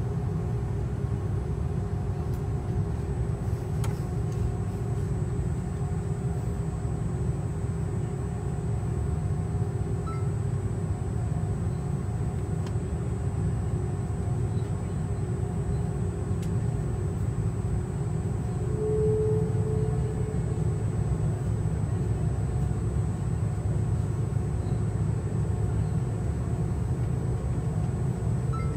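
Airliner engines heard from inside the cabin during taxi: a steady low rumble with a faint steady hum above it, and one short higher tone about two-thirds of the way through.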